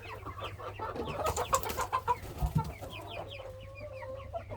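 A flock of chickens clucking and chattering, many birds calling over one another in short, quick notes, with one bird holding a longer level note near the end. A few light knocks sound about halfway through.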